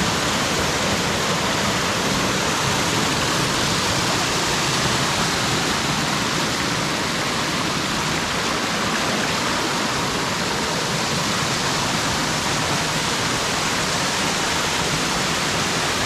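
Waterfall rushing: a steady, loud roar of falling water with no breaks.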